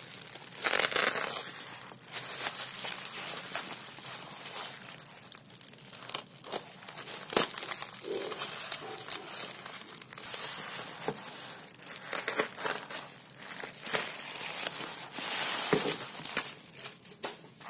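Thin plastic mailer bag crinkling and rustling in irregular bursts, with tearing sounds, as it is cut open with a utility knife and the wrapped parcel is pulled out of it.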